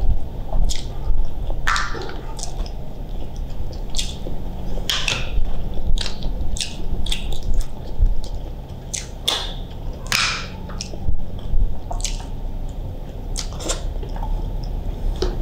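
Fingers peeling the buttery shells off boiled shellfish: irregular wet crackles and sticky clicks, with some mouth sounds from eating, over a low steady hum.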